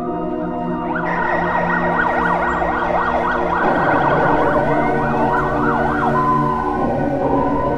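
A siren-like tone warbling rapidly up and down in pitch, several sweeps a second, over a sustained organ-like music bed. About six seconds in, the warble gives way to a rising glide that settles on one steady note.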